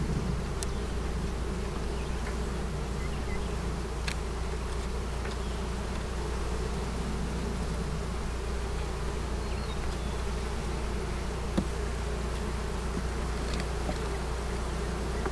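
Honeybees buzzing steadily around an open hive box while frames covered with bees are lifted out. A few light clicks can be heard over the hum.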